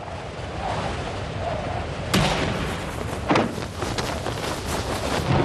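Sound effects for an animation of a spacecraft's entry into Mars' atmosphere: a steady rushing rumble cut by several sharp bangs, pyrotechnic firings as the Curiosity spacecraft's parachute mortar fires.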